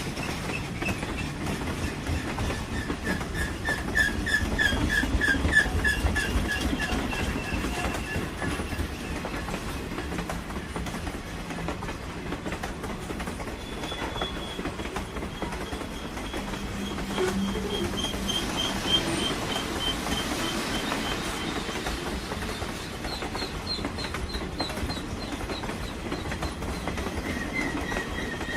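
Train running on rails: a steady rumble with rapid clicking from the wheels. A high, pulsing squeal from the wheels comes and goes on top.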